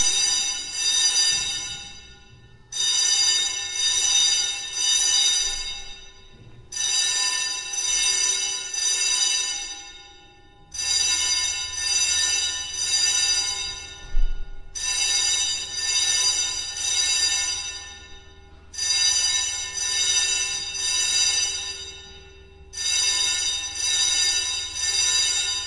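Fire alarm sounding: a loud, high ringing tone that comes in bursts of three pulses, each burst lasting about three and a half seconds with a short break before the next, repeating about every four seconds.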